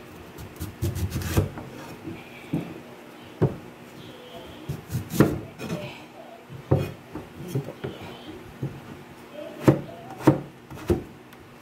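Large kitchen knife slicing through raw peeled sweet potato, the blade knocking on the cutting board at irregular intervals, about a dozen sharp knocks, some in quick pairs.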